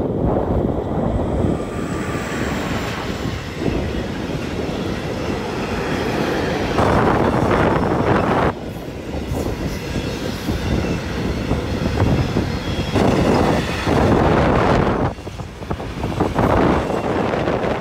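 Freight train of tank wagons hauled by an electric locomotive passing close by, its wheels rumbling on the rails. The loudness swells and eases in surges as the wagons roll past.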